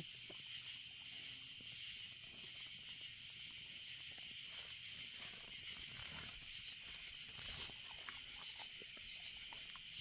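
Steady chorus of night insects, several high-pitched trills held without a break. Faint scattered clicks sound over it as a dog chews a cicada.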